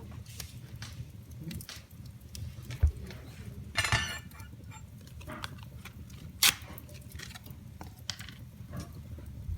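Wood fire in a fireplace crackling, with irregular sharp pops over a steady low rumble. A burst of crackling comes about four seconds in and a loud single pop about six and a half seconds in, with a dull thump just before three seconds.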